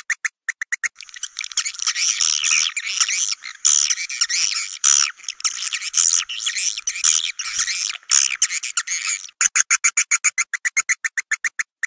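Edible-nest swiftlet calls from a lure recording. It opens with a rapid, even train of sharp chirps, about a dozen a second, then a dense overlapping twittering chatter from a colony, and the chirp trains return near the end.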